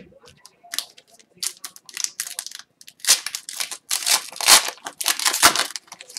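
Foil wrapper of an Upper Deck hockey card pack crinkling and tearing as it is peeled open by hand. The crackling starts about a second in and gets louder and denser over the last three seconds.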